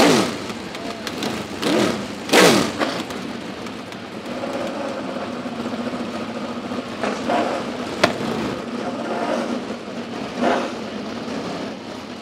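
Race car engines blipped hard three times in the first few seconds, each rev falling away, then an engine idling steadily with a few smaller revs and a sharp click about eight seconds in.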